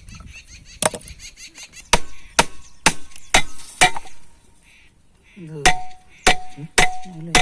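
Hammer blows on metal, about two a second, the last four ringing with a clear tone, as a three-phase monoblock pump motor is knocked apart to open its casing.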